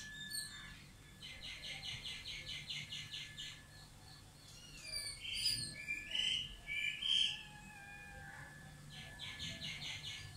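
Birds calling: a rapid series of high notes, about five a second, repeated twice, with a few louder separate chirps in between.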